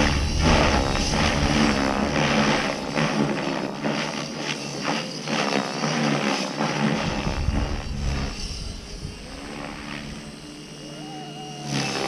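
Electric RC helicopter, an Align T-Rex 550E DFC with 550 mm main blades and a three-blade tail rotor, flying aerobatics. The rotor blades make a loud whooshing chop and the drivetrain whines, the pitch shifting as the manoeuvres load the rotor. It is loudest in the first two-thirds and fades over the last few seconds.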